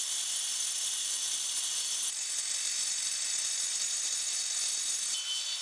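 Handheld angle grinder cutting into a clay brick with its cutting disc: a steady high-pitched whine with grinding hiss. The tone shifts slightly about two seconds in, and a clearer whistle joins near the end.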